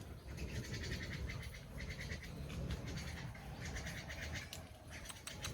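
Baby monkey giving short runs of rapid, high-pitched squeaks, several clusters of quick repeated calls, over a low handling rumble.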